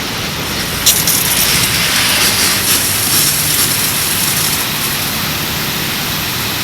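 Irrigation sprinkler heads spraying water in a steady hiss, which grows louder about a second in.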